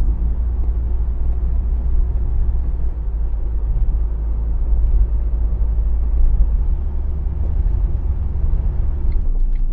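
Steady low rumble of engine and road noise inside a car's cabin while it drives along at speed, easing slightly near the end.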